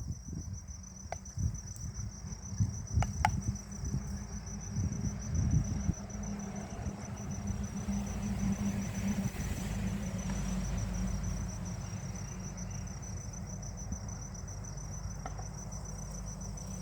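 Insects, crickets by the sound, chirping in a steady, high, rapidly pulsing trill, over a low rumble and a few scattered clicks.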